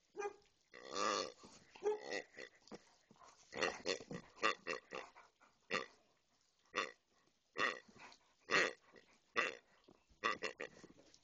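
Grey rubber pig dog toy squeezed over and over, giving a series of short pig-like grunts, mostly about one a second, with quicker runs of them around four seconds in and near the end.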